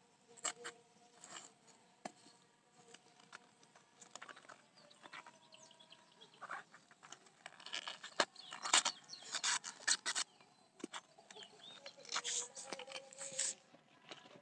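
Sickle cutting into a banana stem, and hands tearing its fibrous sheaths apart: scattered cuts, scrapes and snaps, with louder bursts of ripping about eight seconds in and again near the end.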